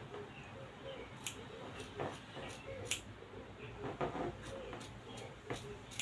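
Fabric shears snipping through printed dress fabric in short, sharp cuts, about two a second, as a skirt pattern piece is cut out.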